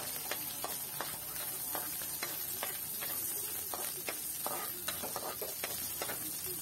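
Sliced onions sizzling in hot oil in a wok as a spatula stirs them, the spatula scraping and tapping the pan in irregular clicks.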